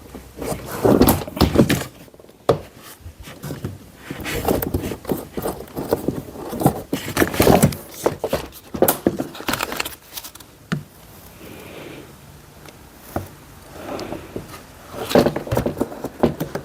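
Car door trim panel being handled against the door: a run of irregular knocks, rattles and scraping noises, some quieter stretches between them.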